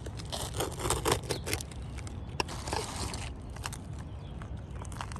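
Asphalt roofing shingle being trimmed by hand: a quick run of scratchy cutting strokes, then a sharp click and a few lighter scrapes and handling noises, over a steady low rumble.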